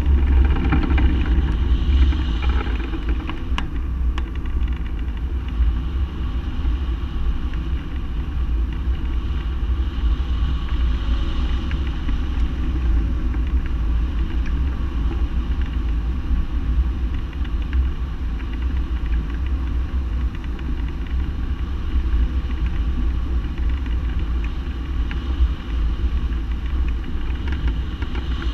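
Wind rushing over a microphone on a hang glider's wing in flight: a steady low rumble of buffeting airflow, a little stronger in the first couple of seconds.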